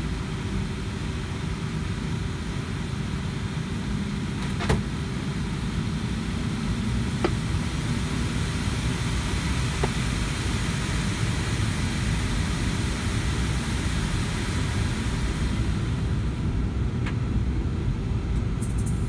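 Cabin noise of a Boeing 757-200 taxiing, heard from inside at a window seat over the wing: a steady rumble from its Pratt & Whitney PW2037 turbofans at taxi power and the wheels rolling over the taxiway. A few light clicks come through, one about five seconds in and two more a few seconds later.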